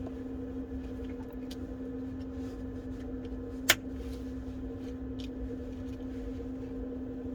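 Steady electrical hum with a few faint ticks of small parts and tools being handled, and one sharp click a little over halfway through.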